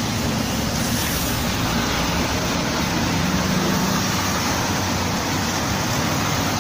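Steady traffic noise from a wet city street, with a vehicle's low engine hum coming up about three seconds in.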